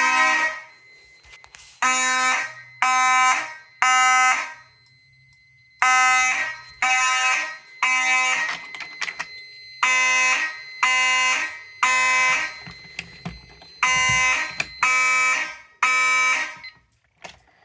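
Fire alarm system sounding in the code 3 (temporal-three) pattern: three loud buzzy blasts, a pause, then three again, repeated through four full rounds. The system is in alarm after an old Honeywell ionization smoke detector was set off with real smoke.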